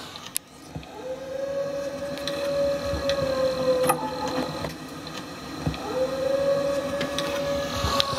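Two long howls from a wild canid, each held on one pitch and sagging slightly at the end: the first starts about a second in, the second about six seconds in and runs past the end. The recordist takes it for a coywolf, not a coyote; neighbours call it a wolf. A steady hiss and a few faint clicks lie under the howls.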